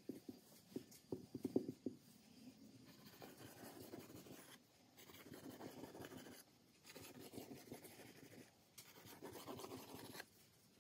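A metal spoon tapping and scraping over a round of oiled paratha dough in the first two seconds. Then a knife blade scrapes through the dough in four long cutting strokes, each about one and a half seconds, with short pauses between them.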